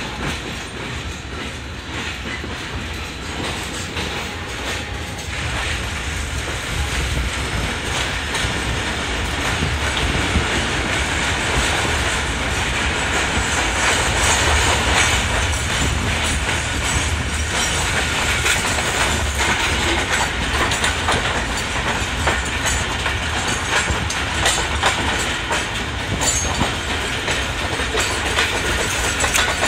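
Passenger train running along the track: a steady rumble with wheels clattering over the rail joints, getting a little louder after about six seconds.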